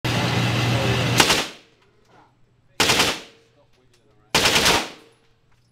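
Fully automatic machine gun firing: one long burst of about a second and a half, then two short bursts roughly a second and a half apart.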